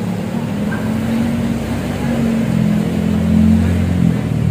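A motor vehicle's engine running, its note shifting slightly about halfway through and again near the end.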